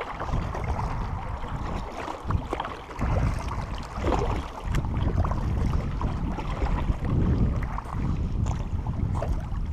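Kayak moving across a lake: a low, uneven rumble of wind on the camera microphone mixed with water noise around the hull.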